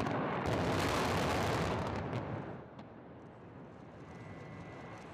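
Explosive demolition of a large concrete cooling tower. A loud rumble of blast and collapse eases after about two and a half seconds into a quieter, lingering rumble with a few scattered cracks.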